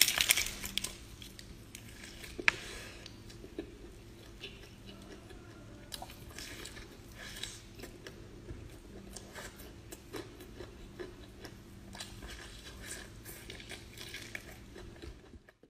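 Crispy fried chicken drumstick crackling as it is pulled apart and bitten, loudest in the first second. Quieter crunching and chewing follow, with scattered crunches over a faint steady hum.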